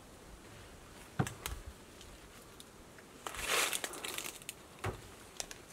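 A large old wooden door being shifted by hand: a sharp knock about a second in, a scraping rustle around the middle and a duller knock near the end.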